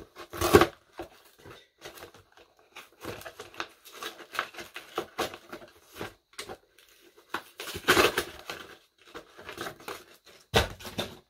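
Plastic toy packaging crinkling and rustling as it is handled, with scattered small clicks and a few louder handling bursts about half a second in, around eight seconds in and near the end.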